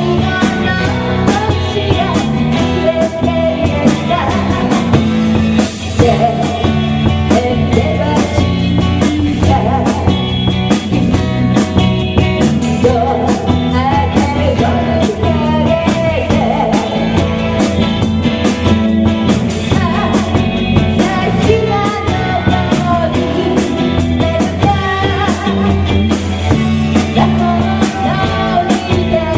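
Rock band playing a song: a singer over drums and electric guitar, loud and continuous.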